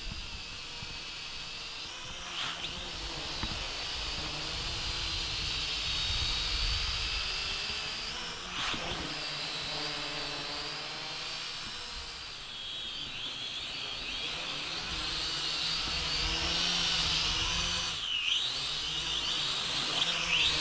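Small toy quadcopter's electric motors and plastic propellers whirring in flight, the pitch rising and falling as the throttle changes.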